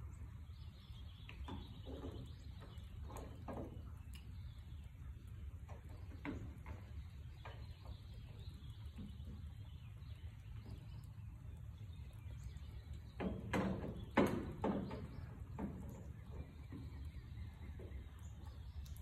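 Hand rivet squeezer setting aluminium rivets in a wing doubler plate: scattered faint metallic clicks and knocks, with a louder cluster about 13 to 14 seconds in, over a low steady hum.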